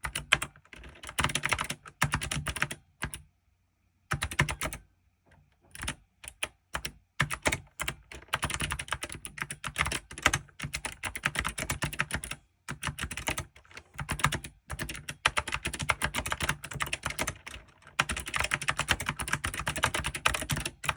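Typing on an ABKO K660 ARC mechanical keyboard: fast runs of key clicks in bursts, with brief pauses between them and a stop of about a second and a half a few seconds in.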